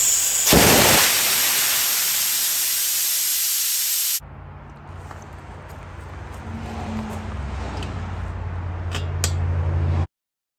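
Compressed air hissing out of the open drain valve at the bottom of a MCGRAW 21-gallon oil-free vertical air compressor tank as the tank pressure is let off, easing off slowly, then cut off abruptly about four seconds in. After it, a much quieter low steady hum with a couple of sharp clicks near the end.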